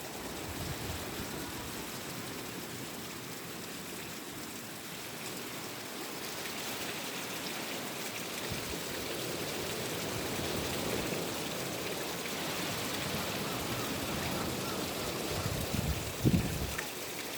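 Small freshwater waterfall of spring water splashing and running steadily onto the beach, with a brief low thump near the end.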